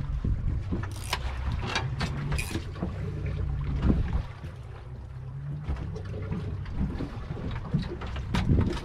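Low, steady rumble of a fishing boat at sea, with wind on the microphone and a few short, sharp knocks scattered through it.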